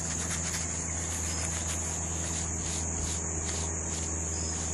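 Steady, high-pitched insect chorus, with a steady low hum underneath.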